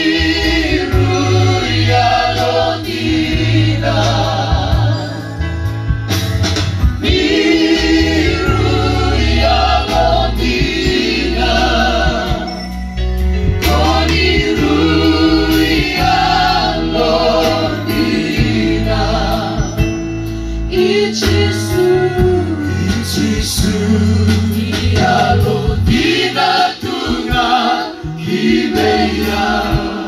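A group of singers sings a song together into handheld microphones, amplified over a PA and backed by a live band. The singing is continuous, over a heavy, steady low accompaniment.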